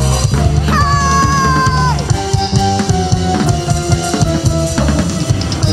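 Upbeat live praise-band music with a driving drum-kit beat and bass, and a held keyboard or vocal note that sags a little about a second in.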